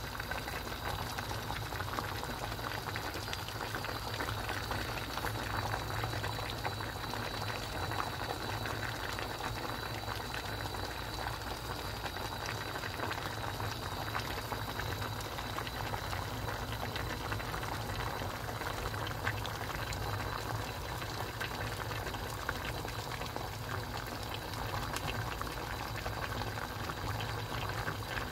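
Pork-belly braised kimchi (kimchi-jjim) bubbling at a steady boil in a pot: a continuous stream of small popping bubbles in the broth, over a steady low hum.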